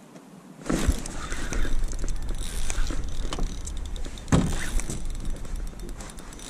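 Sudden handling noise a little under a second in as a fish is hooked and the rod loads up. Rattling and clicking from the Penn Slammer III spinning reel and rod come over a low rumble, with two loud knocks, the second about four seconds in.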